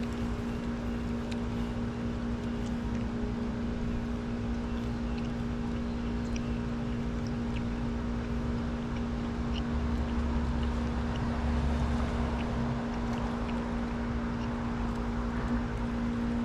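A steady motor hum holding one constant pitch, with a low rumble swelling briefly around ten to twelve seconds in.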